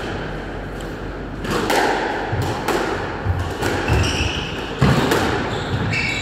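Squash rally: the ball is hit by rackets and smacks against the court walls every second or so, starting about a second and a half in. Footsteps on the wooden floor accompany the hits, and each impact rings briefly around the court.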